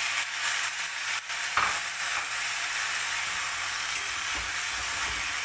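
Chopped cassia tora leaves sizzling steadily in a hot pan just after a little water is poured in, while a steel spoon stirs through them; one knock about a second and a half in.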